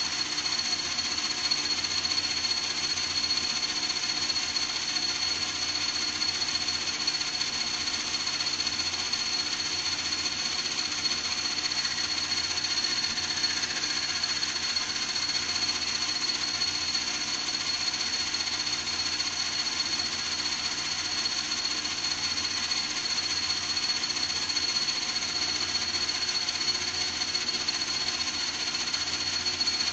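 An old metal lathe running steadily, a little loud, with a constant high whine over its motor hum.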